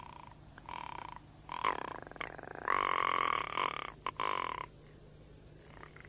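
A series of wild animal calls, short pitched calls with a nasal ring. The longest and loudest comes about three seconds in, and the calls stop shortly before five seconds.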